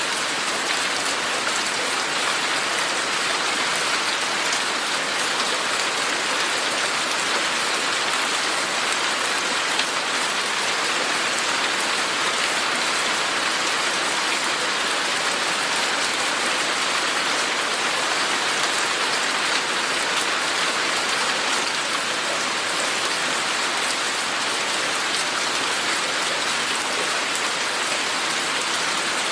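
Steady, heavy rain falling and pattering on surfaces, an even unbroken hiss.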